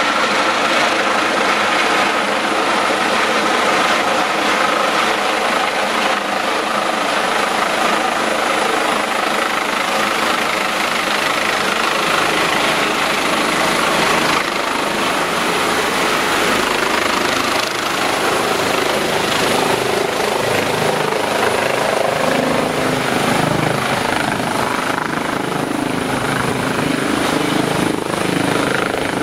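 Airbus H145 twin-turbine rescue helicopter coming in to land: steady, loud rotor noise with a thin high turbine whine throughout, lower rotor tones growing near the end as it nears the ground.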